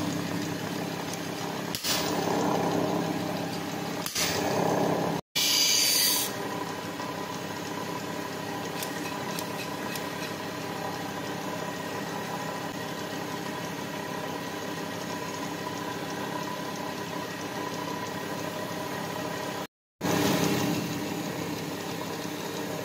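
Belt-driven grinding wheel running with a steady motor hum, rougher and louder over the first few seconds, with a short harsher hiss about six seconds in. The sound breaks off abruptly twice.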